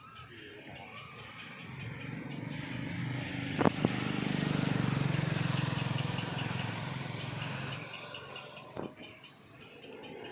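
An engine passing by, growing louder to a peak about four to six seconds in and then fading away, with a sharp click just before the peak and another near the end.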